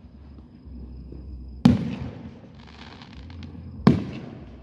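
Two aerial firework shells bursting about two seconds apart, the first a little under two seconds in. Each is a sharp bang followed by a fading rumbling echo.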